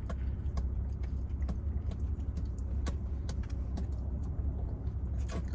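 Steady low rumble of a parked car's engine idling, with small clicks and smacks of close-up eating and chewing over it, and a short rustle near the end.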